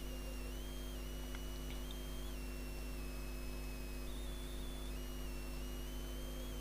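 Steady low electrical hum with a faint high-pitched whine that steps up and down in pitch every second or so, and a few faint clicks about a second and a half in.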